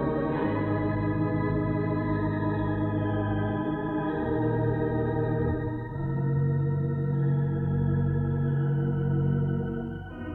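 Hilsdon 3/29 theatre pipe organ playing slow, sustained chords. The chords change every two seconds or so, with a slight waver in the upper tones and a brief lull near the end.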